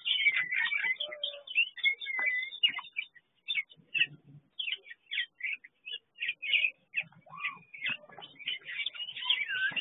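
Several small songbirds chirping and twittering in short, high calls. The chatter is busy at first, thins out to scattered single chirps in the middle, and picks up again near the end.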